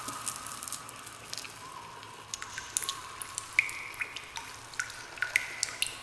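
Cave dripping-water sound effect: irregular drops falling into water, several a second, many with a short pitched plink, the loudest a little past halfway, over a faint steady hiss.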